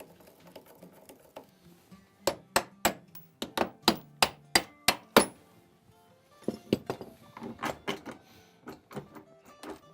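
A hammer striking repeatedly in sharp blows, about three a second, for several seconds, then a run of lighter, quicker taps. Background music plays underneath.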